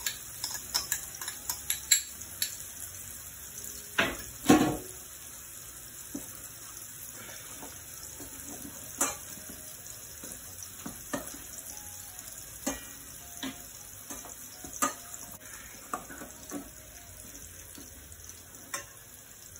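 Metal spoon and fork clinking and scraping against a stainless steel bowl as a salad is tossed with its dressing, in many short irregular clicks, the loudest about four seconds in. A steady high hiss runs beneath.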